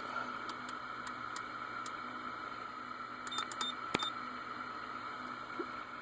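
Steady hiss of radio receiver static, with scattered small clicks of knobs and switches being worked. About three and a half seconds in, three short high beeps from button presses come in quick succession, followed by a sharper click.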